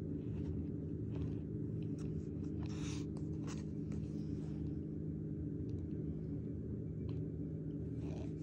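Metal spoon scraping and crunching through packed cornstarch in a tub, in short strokes clustered in the first half and again near the end, over a steady low hum.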